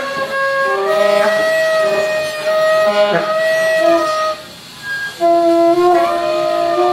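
Two saxophones playing long held notes that overlap and shift from pitch to pitch. About four and a half seconds in they drop away briefly, then come back in.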